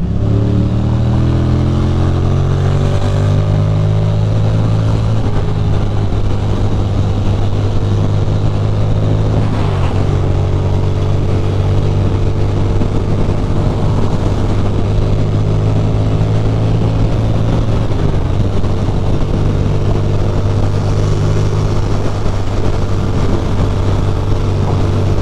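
Ducati Monster's L-twin engine pulling under acceleration, its note rising over the first few seconds, then holding steady revs at highway speed. There is a short break in the engine note about ten seconds in, with wind and road noise underneath throughout.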